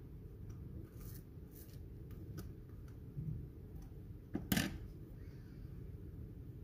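Butter knife spreading butter on a slice of crusty ciabatta, with faint scrapes and clicks against the crust. A little past halfway comes one louder knock, the knife being set down on the wooden chopping board, over a low steady hum.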